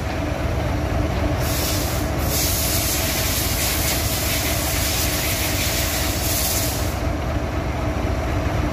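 A steady, loud mechanical drone with a low rumble and a constant hum. A high hiss cuts out for a while about a second in and again about seven seconds in.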